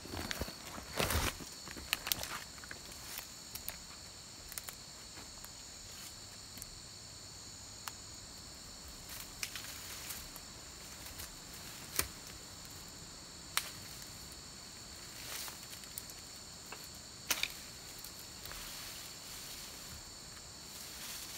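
Steady high-pitched chorus of insects, with scattered footsteps and rustling in the brush as someone walks on and around a fallen log; the loudest steps come about a second in. No chainsaw is running.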